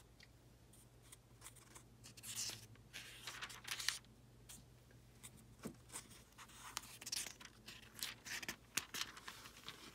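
Thin Bible-paper pages of a study Bible being leafed through and handled: soft, irregular rustles and crinkles.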